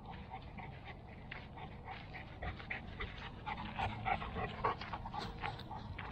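A large dog panting quickly and rhythmically. The panting grows loudest about four seconds in as the dog comes up close.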